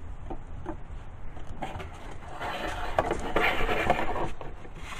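Rubbing and scraping as the foam model airplane and its taped dowel rod are handled, with a few small clicks, swelling for a couple of seconds in the middle.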